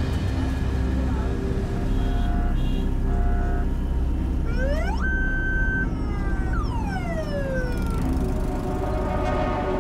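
Police vehicle siren giving one wail: it rises quickly to a high held tone about five seconds in, then winds slowly back down. Under it is steady road noise heard from inside a moving van, with two short beeps a few seconds before the wail.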